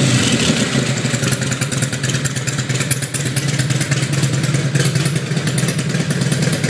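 The fuel-injected Twin Cam 88 V-twin of a 2003 Harley-Davidson Road King Classic, idling steadily with an even low pulse. By the seller's account the motor sounds great and runs great.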